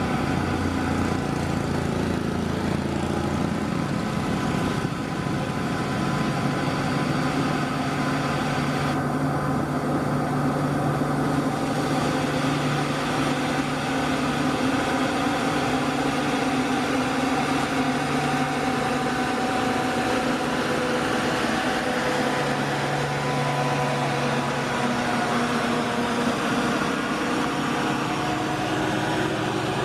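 Radio-controlled model excavator running: a steady mechanical whine made of several tones, with a lower hum that comes and goes as it works.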